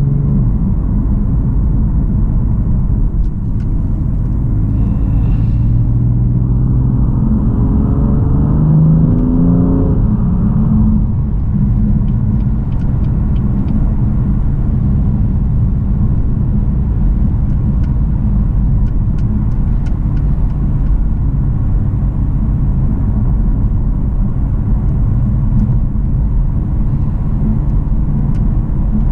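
BMW F80 M3's twin-turbo straight-six engine and road rumble while driving: a steady low drone. About six seconds in, the engine pulls up through the revs for about four seconds, then cuts back suddenly to a steady cruise.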